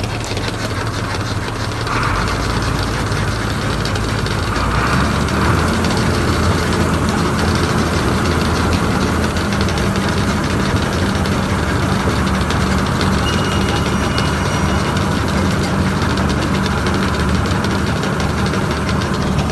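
John Deere 4240 tractor's six-cylinder diesel engine running steadily while the feeder wagon unloads feed into a bunk. The engine note picks up about two and again about five seconds in.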